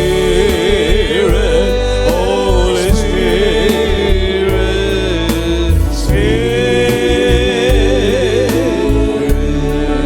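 Live Christian worship band music: long held melody notes with wide vibrato over a full band with drums, with a new phrase starting about six seconds in.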